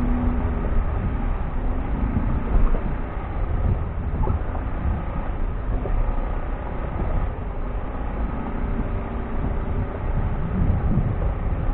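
A vehicle engine running while it is driven over rough ground, with a rough, uneven rumble.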